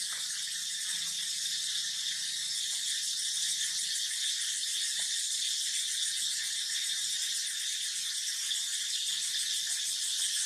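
Steady high-pitched insect chorus, with a few faint light clicks.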